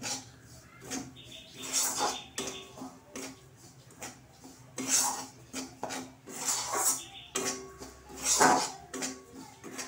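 Flat metal spatula scraping and stirring crumbly dhoka mix around a steel kadai, which is roasting in a little oil over medium heat. It is a series of rough scrapes about every second, and the loudest comes near the end.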